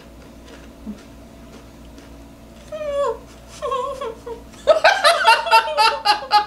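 Two short, high-pitched whimpering cries with falling pitch, a reaction to the burn of spicy chips, then from about five seconds in loud laughter in quick pulses.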